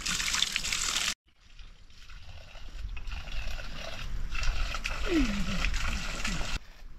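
Water from a pipe spout running and splashing into a metal pot as it is rinsed, cut off abruptly about a second in. Then a quieter outdoor background, with a short call falling in pitch a little after five seconds in.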